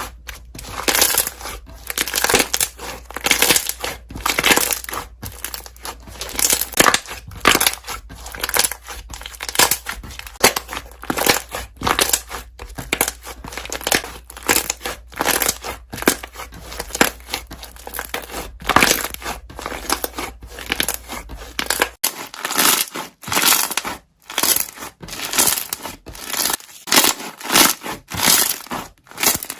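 Slime being squeezed and pressed by hand, the air bubbles trapped in it popping in rapid, irregular crackles.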